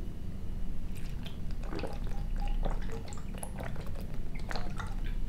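A man drinking in gulps from a plastic shaker bottle, with short wet liquid sounds and swallows at irregular intervals.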